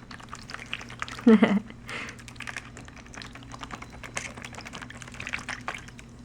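Quick, irregular light clicks and taps as a pet bird bathes and splashes in a small dish of water, over a faint steady low hum.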